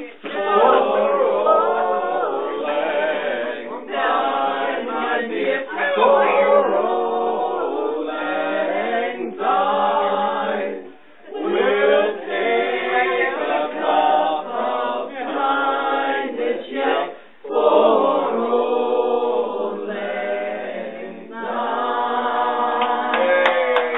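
Unaccompanied singing of a song: voices together in long phrases, with short breaks about 11 and 17 seconds in.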